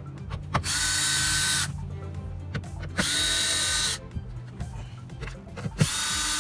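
DeWalt 20V cordless drill backing out 7 mm door-panel screws, run in three short bursts of about a second each. Each burst whines quickly up to speed and then holds steady. The last one is still running at the end.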